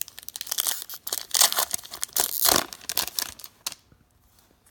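A trading card pack's foil wrapper being torn open and crinkled. The dense tearing and rustling stops about four seconds in.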